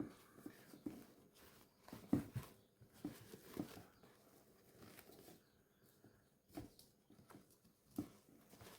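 Faint, scattered small clicks and rustles of hands handling a doll and its fabric clothes.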